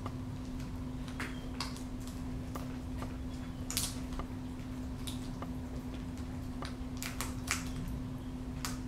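Peregrine falcon feeding on quail meat: irregular wet clicks and snaps of its beak tearing flesh, about a dozen, the loudest about four seconds in and again near seven and a half seconds.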